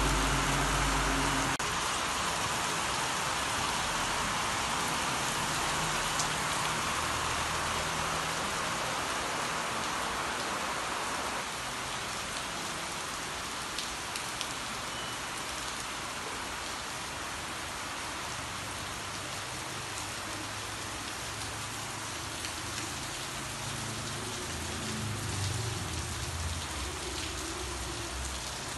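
Heavy rain falling steadily, a dense even hiss of drops on roofs and ground, a little softer about a third of the way through. A low hum cuts off suddenly about a second and a half in.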